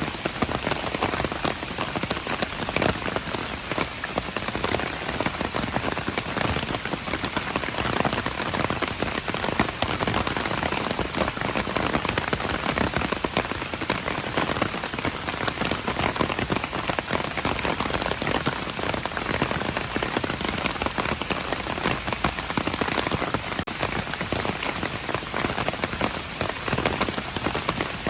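Steady rain falling, a dense, even patter of many individual drops.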